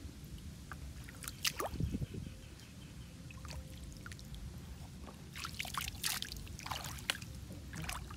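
Splashing and sloshing of shallow muddy water stirred by a bare foot: a few short splashes about a second in, then a denser run of splashes from about five seconds on.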